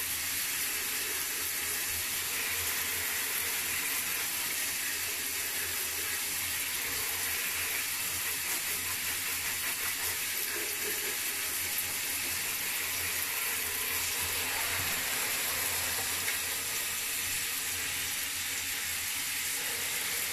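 Handheld shower spraying water into a bathtub and over a wet cat, a steady hiss.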